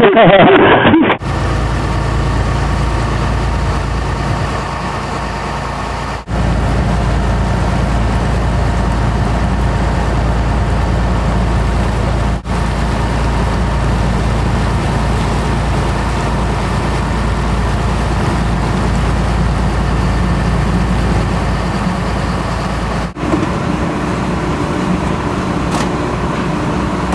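Boat engine running with a steady low drone. It breaks off for an instant three times.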